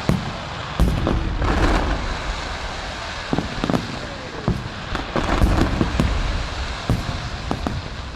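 Aerial fireworks bursting in quick succession: many sharp bangs and deep booms, with crackling in between.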